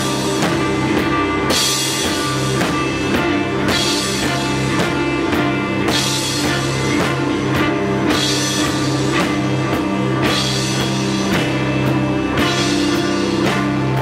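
Live instrumental rock played by a drum kit and an electric guitar: the guitar holds a steady droning chord while the drums keep a driving beat, with a cymbal crash about every two seconds.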